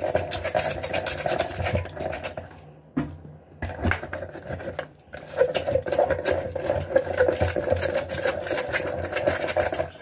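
Lemon halves being twisted hard back and forth on a metal hand citrus reamer, making a fast rhythmic rasping and squeaking of peel and pulp against the metal ridges. The grinding comes in two long spells with a short pause between them a few seconds in.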